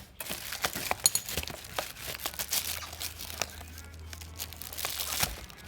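Food-delivery packaging being unwrapped by hand: irregular crinkling and crackling with sharp little snaps.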